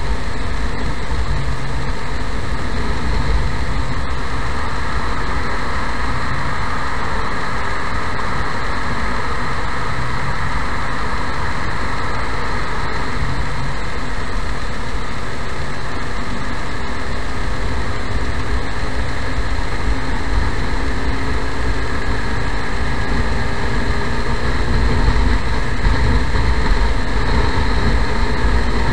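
Motorcycle riding in slow traffic: the engine running under steady wind and road noise on the bike-mounted camera, a little louder near the end.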